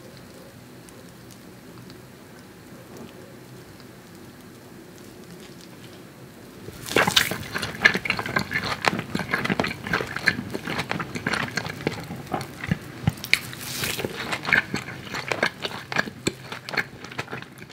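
Close-miked eating sounds: wet chewing and mouth clicks, irregular and sharp, starting about seven seconds in after a stretch of faint steady background noise.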